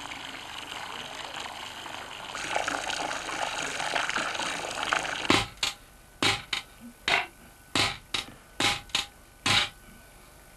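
Water splashing from a spout pipe into a wooden trough. About five seconds in, this gives way to about ten sharp, ringing hammer strikes at an uneven pace as a scythe blade is peened on a small anvil to hammer its cutting edge thin.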